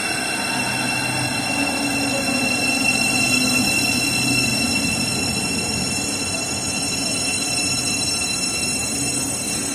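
British Rail Class 700 electric multiple unit rolling slowly along the platform and braking to a stop, several steady high-pitched tones over a low rumble, slowly fading.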